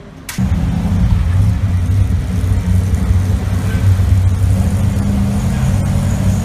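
Arrinera Hussarya 33 GT race car's V8 engine idling with a steady low rumble, which cuts in abruptly just after the start.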